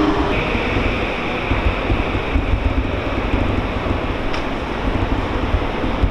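A JR E231-series electric train standing at a station platform, with a steady high hum starting just after the start, over a low fluttering rumble of wind buffeting the microphone.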